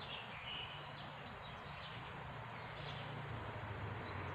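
Quiet outdoor background: a low steady hum that grows slightly stronger after about three seconds, with a few faint bird chirps.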